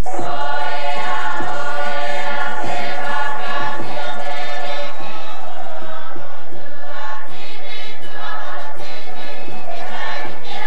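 A large group of voices singing together as a choir, traditional Māori concert-party singing.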